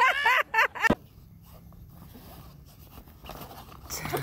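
A young girl's excited high-pitched squeals, a quick run of short rising-and-falling cries in about the first second, then quiet apart from a faint low hum.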